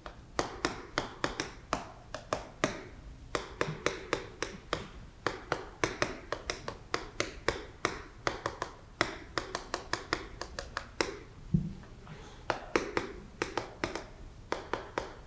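Chalk writing on a blackboard: a quick, uneven run of sharp taps and short scrapes as each stroke hits the board, with a brief pause about eleven seconds in.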